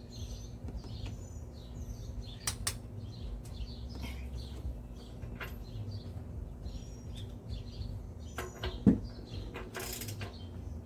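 Car engine being turned over by hand with a ratchet and extension on the crankshaft bolt during timing-chain reassembly: ratchet clicking and creaking in short strokes, with a few sharp knocks and one louder knock near the end.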